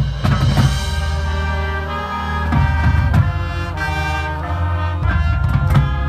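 Marching band playing held brass chords over a deep steady bass, with sharp percussion hits at the start and again about five seconds in.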